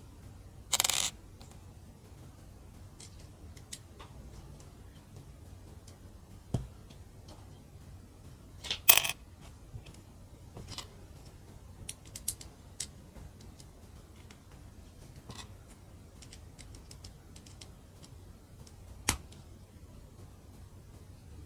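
Mini plastic building bricks being handled and clicked together: scattered small clicks and ticks, with two louder short rattles about a second in and about nine seconds in.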